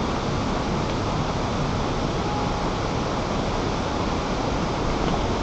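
A steady, even rushing noise with no distinct calls or knocks.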